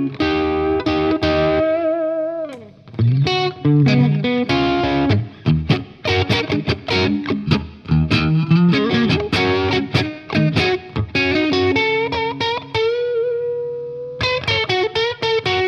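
Telecaster-style electric guitar played through an Origin Revival Drive overdrive pedal, lightly driven. Chords and quick single-note phrases, with a note sliding down about two seconds in, ending on a long held note with vibrato.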